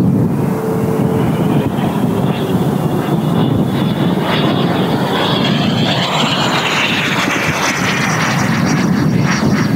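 90 mm WeMoTec Midi Evo electric ducted fan, driven by a HET 700-68 motor in a Sebart Avanti S model jet, whining as the jet flies past. Its pitch rises and then falls about halfway through. Heavy wind buffeting on the microphone sits underneath.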